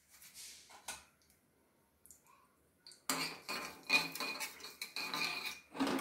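A metal spoon stirring and scraping in a small non-stick pan of hot ghee with mustard seeds and cumin. It is a busy run of scraping and clinking that starts about three seconds in, after a single faint clink about a second in.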